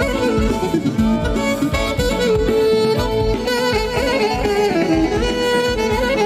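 Live Greek folk band music: an instrumental passage with no singing, a held melody line over a steady rhythm.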